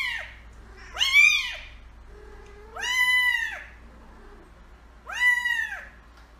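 A kitten meowing over and over: three high meows about two seconds apart, each rising then falling in pitch, with the tail of another meow at the very start.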